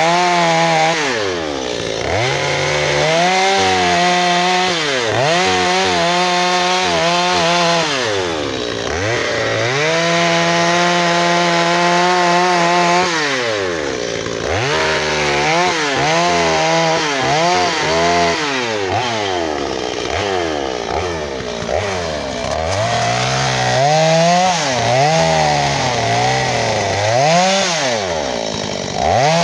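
Two-stroke chainsaw carving into wood, the engine held at high revs for a few seconds at a time, then eased off so the pitch falls and climbs again. In the second half the revs rise and drop more often, with stretches where the pitch sags lower as the chain bites into the cut.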